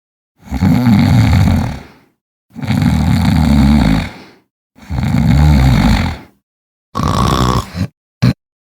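A person snoring loudly: three long snores with short gaps between them, then a shorter, higher-pitched snore and a brief burst near the end.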